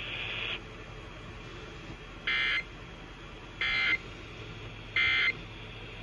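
Three short bursts of EAS end-of-message data tones (the warbling SAME digital code) from an emergency alert radio's speaker, about a second and a half apart, over a steady radio hiss, marking the end of an Amber Alert broadcast.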